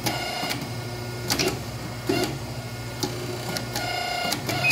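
A hydraulic hose crimping machine running: a steady motor hum with sharp clacks about every second.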